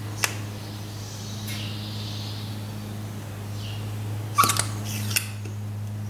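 Hand-operated vacuum pump drawing engine oil up a tube from the dipstick tube into a sample bottle. There is a click a quarter second in, a soft hiss of air and oil through the tubing about a second in, and a cluster of sharp clicks with a brief squeak from the pump near the end, all over a steady low hum.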